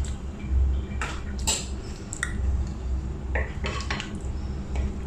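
Wooden spatula stirring a creamy salad in a glass mixing bowl, with several short knocks and scrapes of the spatula against the glass.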